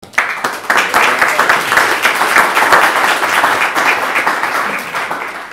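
Audience applauding, many hands clapping at once, tapering off near the end.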